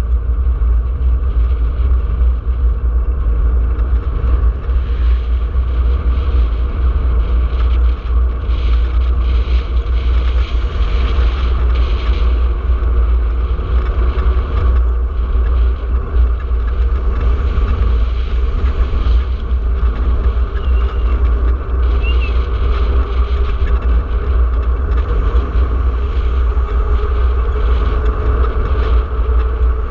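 Steady wind rumble and road vibration picked up by a handlebar-mounted camera on a moving bicycle.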